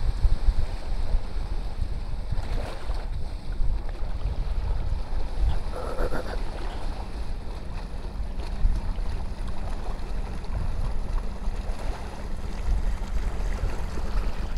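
Wind buffeting the microphone as a fluctuating low rumble, over small waves lapping in shallow water at the shore.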